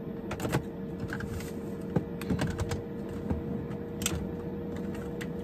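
Hands rummaging through bags and belongings in search of scissors: irregular light clicks, taps and rustles of items being moved, over a steady hum.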